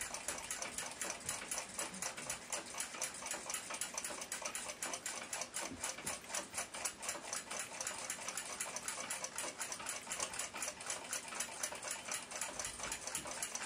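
Ansonia clock movement running out of its case, its escapement ticking fast and evenly, several ticks a second.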